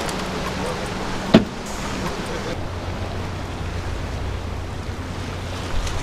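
Wind on the microphone over the wash of small waves against the pier pilings and rocks, with a low steady hum underneath. A single sharp knock sounds about one and a half seconds in.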